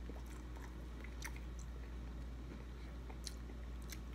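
Close-up chewing of breaded fried fish, with a few short crisp clicks from the mouth over a steady low hum.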